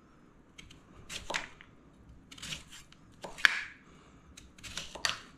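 Kitchen knife slicing a lemon into rounds on a plastic cutting board: about six short cuts at uneven intervals, roughly a second apart.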